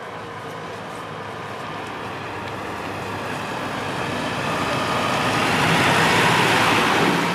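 Farm tractor with a front loader approaching along a narrow lane and passing close by, its diesel engine running and growing steadily louder, loudest about six seconds in.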